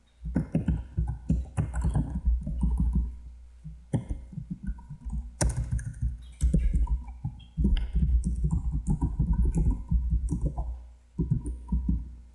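Typing on a computer keyboard: rapid keystrokes in bursts with a few brief pauses, each stroke carrying a low thud.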